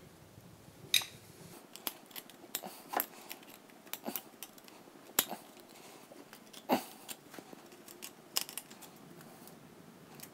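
Sharp, irregular metallic clicks and light scrapes of a screwdriver and fingers working a flush-mounted wall socket insert and its metal mounting frame, freeing it from plaster that is in the way.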